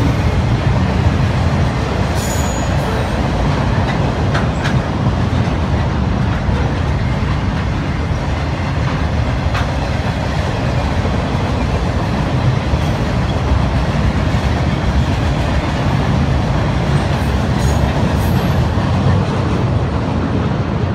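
Freight cars of a passing military train, flatcars loaded with cargo containers, rolling by: a steady low rumble of steel wheels on rail with a few faint clicks.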